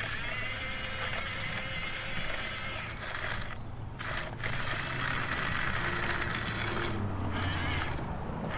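Sand being scooped and poured with a toy shovel into a toy dump truck's bed: a continuous crunching, scraping hiss that breaks off briefly a few times between scoops.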